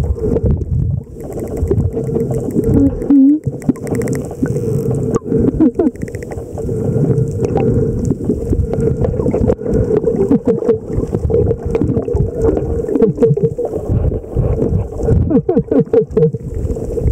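Underwater sound around a pod of spinner dolphins: dolphin clicks and short gliding squeaks over a steady low hum and rushing water noise.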